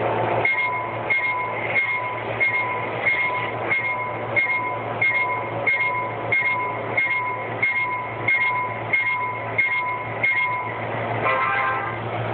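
Railroad crossing-signal bell ringing steadily, about one and a half strokes a second for some sixteen strokes, then stopping, over a steady low hum. A brief chord of tones follows near the end.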